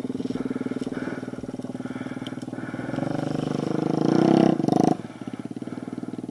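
Dirt bike engine running with a fast, even firing pulse, revving up over a couple of seconds and dropping back abruptly about five seconds in.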